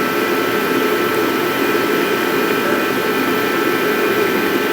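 Steady motor whir with a constant high whine, unchanging throughout.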